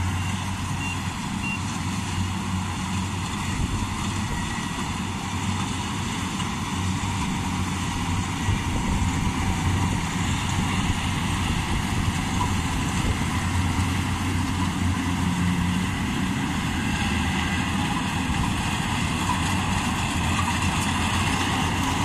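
Combine harvesters running steadily as they harvest rice, an engine hum under the noise of the threshing machinery. It grows a little louder in the second half as a Yanmar combine comes close.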